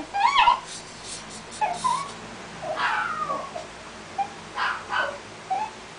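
Maltese bitch in labour whimpering: a loud high cry just after the start, then several shorter, fainter whimpers falling in pitch.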